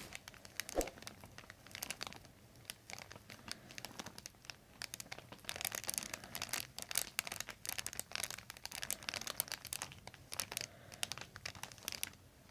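Faint, irregular crinkling and rustling from the patient and chiropractor shifting on the treatment table while she is repositioned for a neck adjustment. The crackles grow busier about halfway through.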